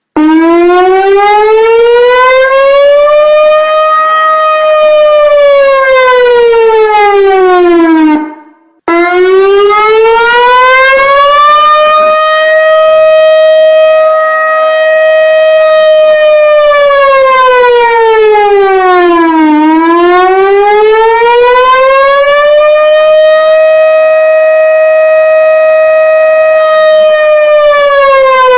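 Civil-defence warning siren sounding a slow rising-and-falling wail: the tone climbs over about three seconds, holds high for a few seconds, then sinks and climbs again, each cycle taking roughly eight to ten seconds. It breaks off briefly about eight seconds in and starts again.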